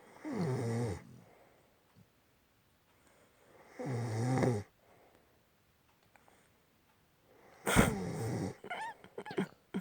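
Deep snoring: two long, drawn-in snores falling in pitch, about three seconds apart, then a louder, rougher snort near the end followed by a few short sounds.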